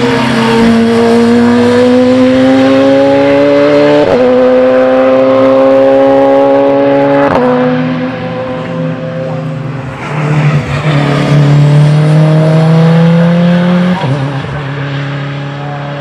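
Race car engines accelerating hard at full throttle, the note climbing in pitch and dropping sharply at each upshift: two gear changes about four and seven seconds in, then, after a brief lull, a second car climbing through the revs with another upshift near the end.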